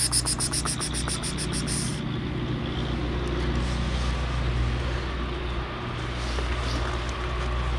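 Steady low rumble of a vehicle engine running nearby. During the first two seconds a rapid high-pitched trill of about eight pulses a second sounds over it.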